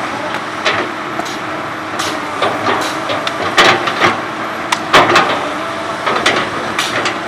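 Komatsu PC200 hydraulic excavator working, its diesel engine running steadily under repeated irregular metallic clanks and knocks from the machine at work.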